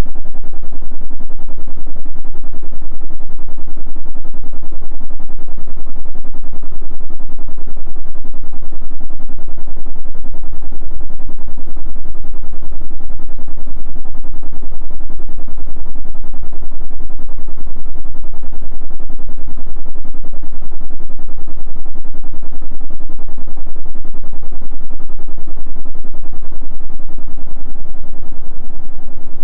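Electric fan running steadily: a deep, even hum with a rapid, regular pulsing from the turning blades.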